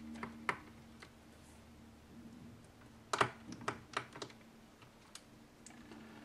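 Small sharp clicks and taps from the hard-drive restraining bar being worked loose inside a 2009 unibody MacBook Pro: one click about half a second in, a quick run of five or six around three to four seconds in, and one more a second later.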